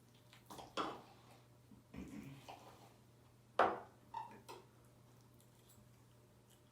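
Fork knocking and scraping against a plate while eating lasagna, with mouth sounds of eating: a few short clinks and clatters in the first two-thirds, the loudest about three and a half seconds in, then quiet.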